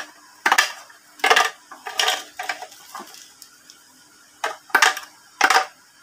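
Ceramic bio rings dropped one at a time into a clear plastic filter media compartment, each landing with a short, sharp clack; about seven clacks at uneven intervals.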